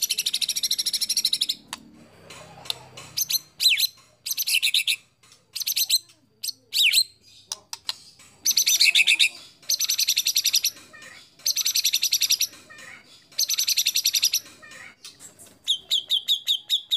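White-rumped shama (murai batu) singing a fast, varied song. Dense volleys of rapid trilled notes, each about a second long, alternate with short whistled glides and chips. Near the end comes a quick run of repeated clear notes.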